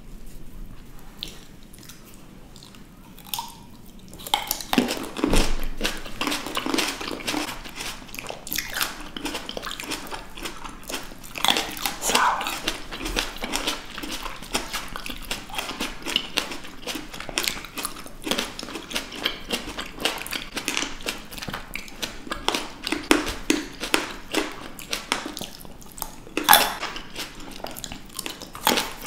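Close-miked biting and chewing of fresh green grapes, with crisp juicy pops and wet mouth sounds. Quiet for the first few seconds, then a dense, steady run of bites and chews.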